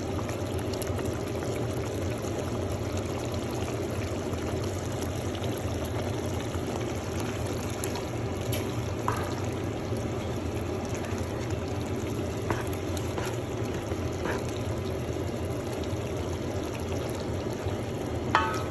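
A pot of soup cooking on the stove, giving a steady bubbling, frying noise, with a few faint clicks about halfway through.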